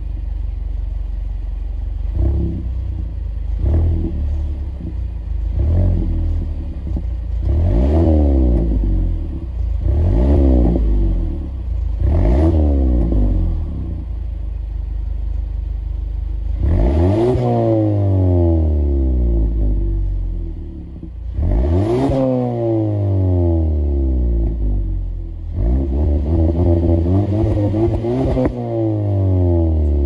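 Mazda 6 with an aftermarket cat-back exhaust, parked and free-revving from idle. First a string of short blips to about 2,000 rpm, then two longer revs to about 4,000 rpm that each fall slowly back to idle, and a quick run of blips near the end.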